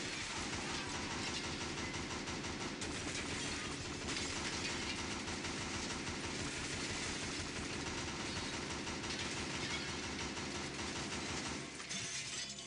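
Continuous automatic gunfire from a compact submachine gun raking through glass office walls, with glass shattering. The fire cuts off near the end.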